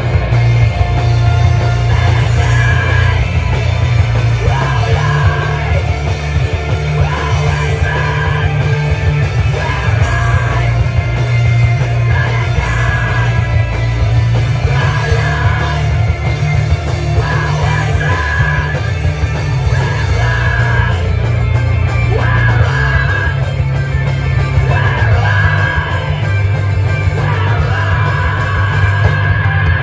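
Live band playing loud, heavy rock music: guitars and drums with yelled vocals.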